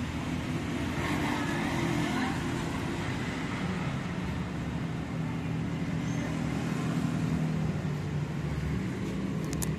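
A steady low motor hum, holding the same few low tones throughout.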